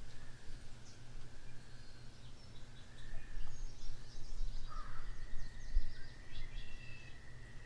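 Outdoor ambience with wild birds calling in scattered short chirps over a low steady hum. A thin, steady whistle comes in about five seconds in and holds to the end.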